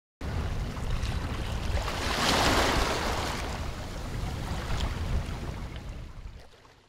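A rushing, whooshing sound effect with a deep rumble underneath. It starts suddenly, swells to a peak about two and a half seconds in, then slowly fades away.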